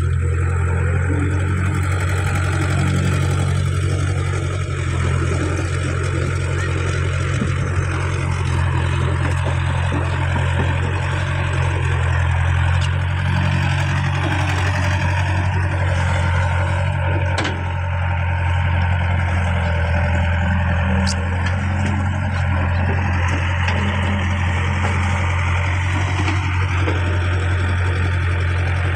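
Caterpillar E70B tracked excavator's diesel engine running steadily, a constant low drone while the machine works its bucket through wet mud.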